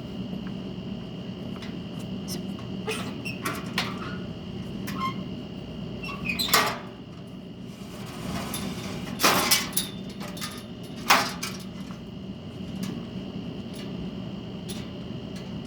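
Scattered clicks and knocks with a few louder clattering noises, about six, nine and eleven seconds in, from handling things while cleaning a kitchen, over a steady mechanical hum.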